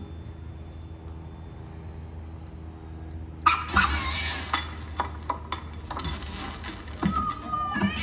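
Soundtrack of an animated cat-and-mouse Christmas window show. A low hum, then about three and a half seconds in a sudden burst of clattering and crashing sound effects with several sharp knocks, and a cat's meow right at the end.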